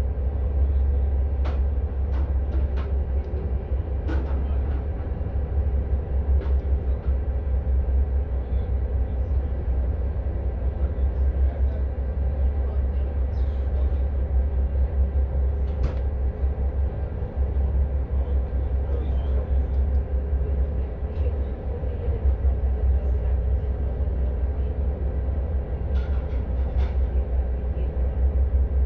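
Tour boat's engine running with a steady deep rumble and a constant hum, with a few faint knocks here and there.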